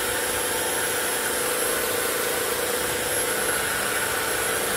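Corded electric hedge trimmer running steadily, its motor and reciprocating blades giving an even buzzing hum.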